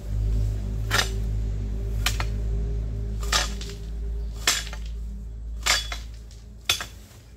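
A hand tool striking the ground with sharp clinks about once a second, over a steady low hum.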